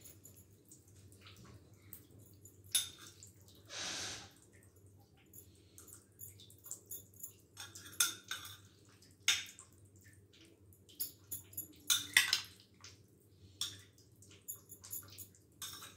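Metal spoon scooping diced mango from a bowl and dropping it onto biscuit crumbs in a glass dish: quiet, scattered clicks and scrapes of the spoon with soft wet sounds of the fruit, and one longer scrape about four seconds in.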